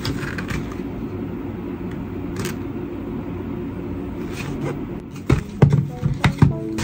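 A steady low rumble, then from about five seconds in a quick run of sharp knocks, taps and scrapes as a cardboard box of cooking oil paper is handled and opened.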